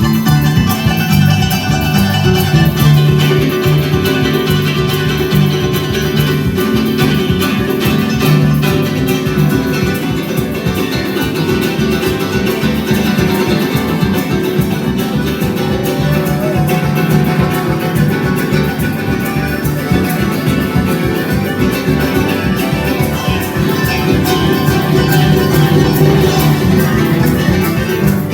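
Paraguayan music played on plucked strings, led by guitar, with a steady rhythm.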